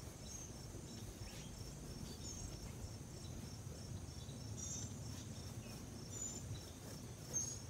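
Outdoor ambience: a steady, high, pulsing insect chorus, with a few short high chirps scattered through and a low background rumble.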